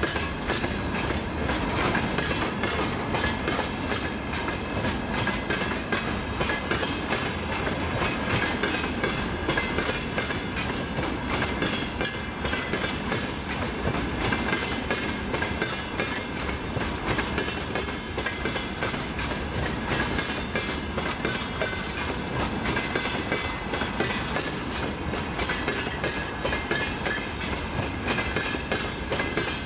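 Long freight train's wagons rolling past at speed: a steady rumble with wheels clattering over rail joints, and a steady high-pitched ring running above it.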